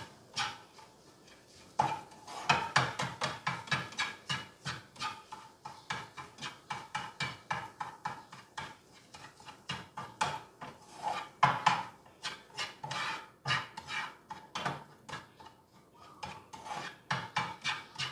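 A spatula chopping and scraping scrambled egg in a non-stick frying pan, breaking it into small pieces. It goes in quick runs of several strokes a second with short pauses between.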